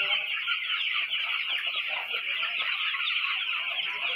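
A large flock of twelve-day-old broiler chicks cheeping all at once: a dense, steady chorus of many overlapping high peeps.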